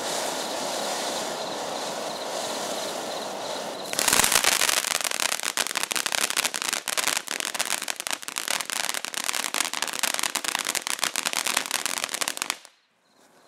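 Ground fountain firework spraying sparks with a steady hiss. About four seconds in it turns louder, into rapid dense crackling, which cuts off suddenly near the end.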